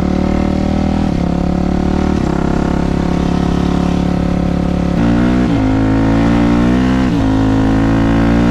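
Yamaha YZ426F dirt bike's single-cylinder four-stroke engine running while ridden. It holds steady low revs, then about five seconds in the throttle opens and the engine runs louder and higher, with two brief dips in the revs.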